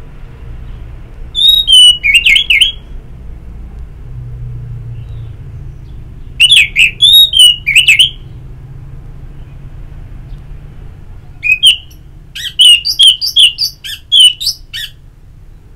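Orange-headed thrush singing: three bursts of quick, varied warbled phrases, the last and longest near the end, over a low steady hum.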